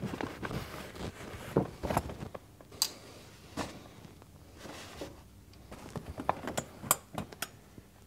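Scattered small clicks and rustling: wire hooks clicking against the grow tent's metal frame poles as they are hung, with the tent fabric being handled.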